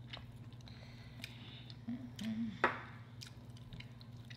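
Quiet eating sounds: wet chewing and small mouth clicks, with a fork clicking in a takeout burrito bowl, the sharpest click a little past halfway. A brief low hum of a voice comes just before it, over a steady low hum underneath.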